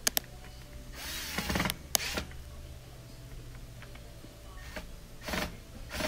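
Cordless drill-driver running in two short bursts, about a second in and again near the end, snugging Phillips screws that hold the drain pump to a dishwasher sump, with a few clicks of handling.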